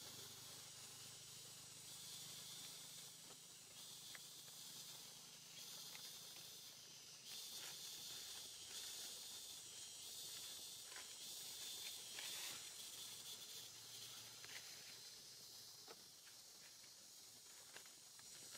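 Faint, steady high-pitched hiss that swells and eases a few times, with a few light clicks.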